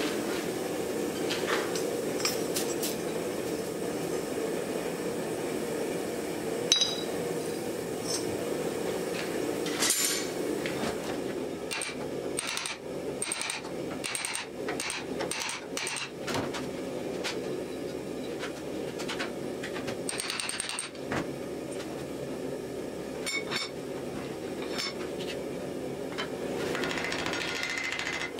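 Hand hammer striking red-hot axe steel on an anvil and in a vise: scattered single blows, then a run of about two strikes a second, over a steady low hum.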